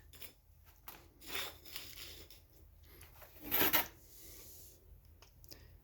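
Light handling noise: a few short rubs and scrapes with small clicks as things are moved about, the loudest scrape about three and a half seconds in.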